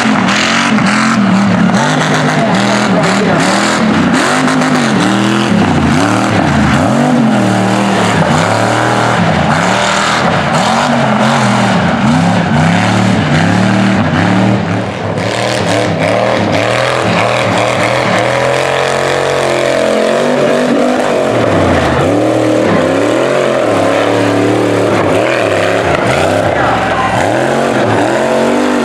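Engine of a lifted mud truck on huge tractor tyres, revving hard and falling back again and again as it climbs and drops over dirt hills.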